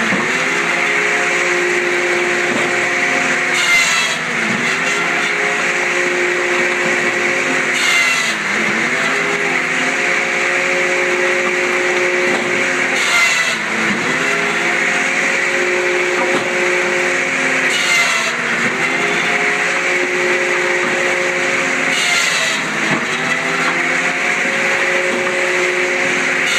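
Woodbine Pro firewood processor running, its turbocharged John Deere engine working in a repeating cycle. About every four to five seconds there is a short sharp crack and the engine's pitch dips under load, then recovers.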